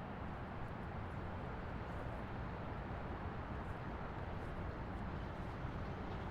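Highway driving ambience: a steady, even rumble of road and tyre noise.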